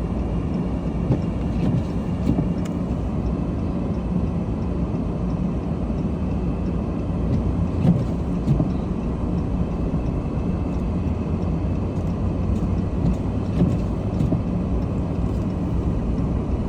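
Steady cabin noise of a car driving on snowy roads: a low engine and tyre rumble, with scattered light ticks.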